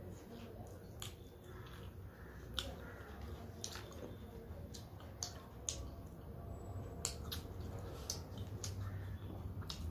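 Close-up eating sounds from rice and greens eaten by hand: about a dozen sharp wet clicks and smacks of chewing and lips, scattered irregularly over a low steady hum.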